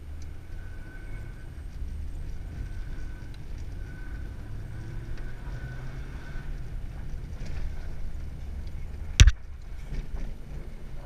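Car engine running at low, steady revs, heard from inside the cabin while the car drives on lake ice, with a faint high whine coming and going over the first six seconds. A single sharp knock about nine seconds in is the loudest sound.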